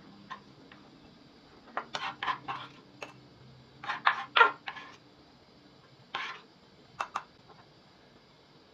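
Kitchen knife and sliced onion on a wooden chopping board: short clusters of knocks and scrapes, the loudest about four seconds in as the onion is swept into a ceramic bowl.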